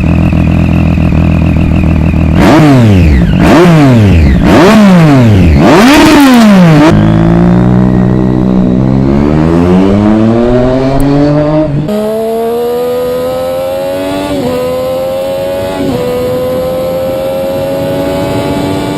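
Triumph Street Triple's inline three-cylinder engine idling, then revved sharply four times in quick succession, then pulling hard with its pitch climbing and briefly dropping at each of several upshifts. The engine gives off a whistle.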